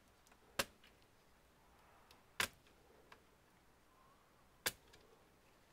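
Three sharp clicks, about two seconds apart, with a few fainter ticks between, from hard plastic parts or tools being handled as an all-in-one computer is taken apart.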